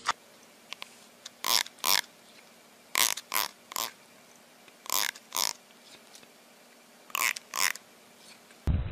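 Short sounds from an animal, coming in twos and threes with about two seconds between each group.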